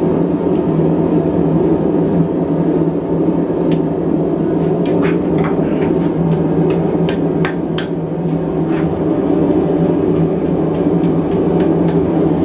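Hammer blows on hot steel at the anvil, rolling small scrolls onto the ends of forged handle bars: a quick run of light strikes starting about four seconds in and another run near the end. A steady low rumble runs underneath.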